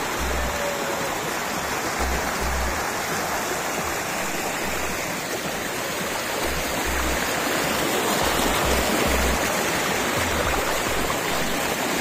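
Stream water rushing steadily over and around boulders in small cascades, with irregular low thumps underneath.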